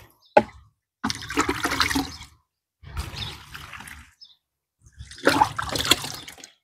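Fungicide solution poured from a plastic scoop onto the soil of a freshly repotted bonsai, splashing in three separate pours of a second or so each.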